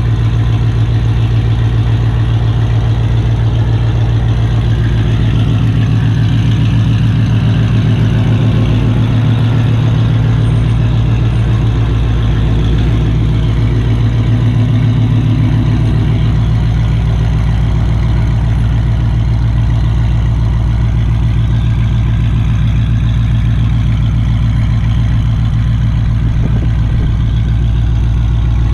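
Dodge Charger R/T's 5.7-litre Hemi V8 idling steadily with a loud, deep exhaust rumble.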